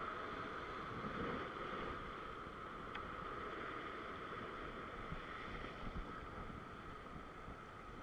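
Ocean swell breaking and washing over a rock ledge, a steady rushing of surf with wind buffeting the microphone.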